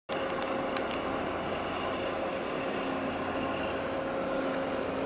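Steady drone of ship engines, a container ship and its tug, heard across the water as a low hum with a few steady tones. It cuts in abruptly at the start.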